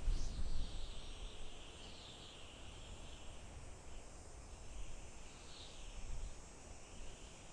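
Soft wind blowing through forest trees: a rustling hiss that swells and fades in gusts, over a low rumble. The strongest gust comes right at the start.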